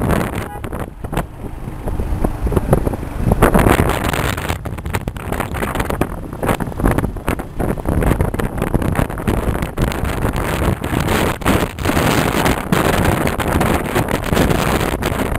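Wind buffeting the microphone on a moving vehicle, rising and falling in uneven gusts over the steady rush of the vehicle travelling along the road.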